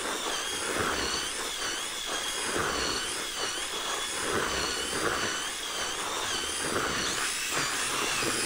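Power drill spinning a groundbait-mixing whisk through moistened fishing groundbait. The motor's whine wavers up and down in pitch over the rustling churn of the mix.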